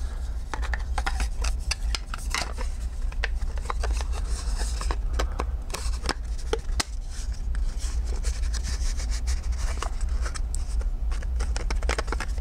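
Small parts being handled and fitted by hand: laser-cut wooden discs and a wooden dowel knocking, clicking and rubbing together in an irregular run of light taps, over a steady low hum.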